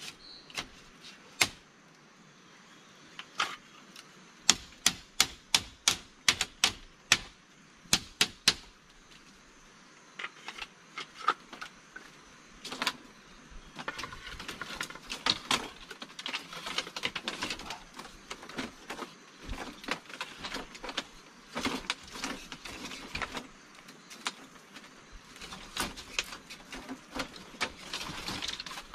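Sharp knocks of wood being struck while building a forest shelter, a quick run of about two a second, then a denser stretch of crackling and rustling with more knocks.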